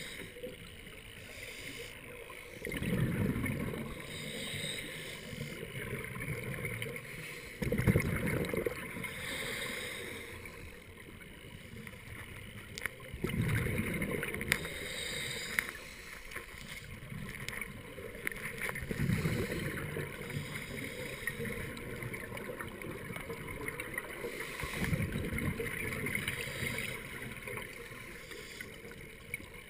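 Scuba diver breathing through a regulator underwater: exhaled bubbles rumble out in five bursts, about every five to six seconds, with a faint watery hiss between.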